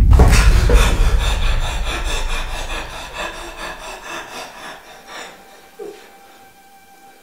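Film sound effect: a deep boom at the start, then a fast, grainy rattling texture that fades away over about five seconds, leaving a faint steady hum.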